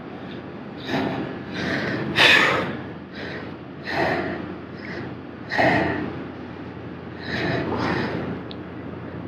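A man breathing hard with effort while fighting a large white sturgeon on a heavy rod: loud, noisy breaths every second or two, the loudest about two seconds in.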